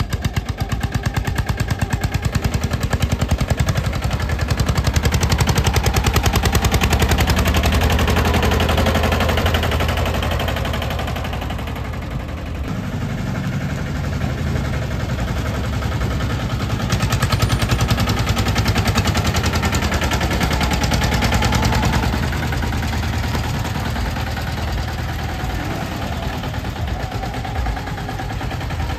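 Escort Steeltrac 15 mini tractor's small diesel engine running under load as it tows a loaded trolley, with a rapid, even exhaust beat that swells louder twice.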